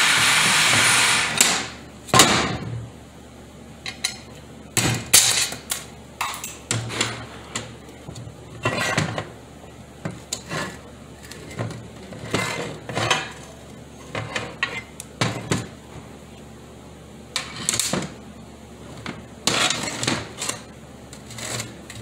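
A steady hiss cuts off about a second and a half in. After that come intermittent metallic clanks and knocks as the aluminum valve body and other 4T40E transmission parts are handled and set down on the bench.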